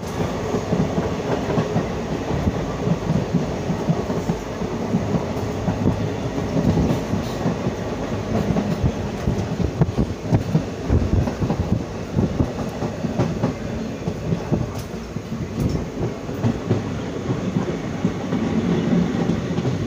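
Passenger train running along the track, heard from an open coach doorway: a steady rumble with the wheels clattering on the rails, and wind buffeting the microphone.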